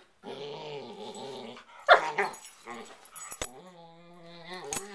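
Two dogs playfighting, growling and snarling at each other: a wavering growl, two loud sharp snarls about two seconds in, then one long, even-pitched drawn-out growl near the end.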